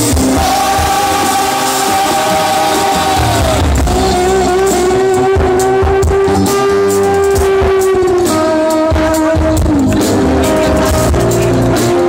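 Live rock band playing loudly on drum kit, bass guitar and electric guitar, with long held melody notes that bend down at their ends.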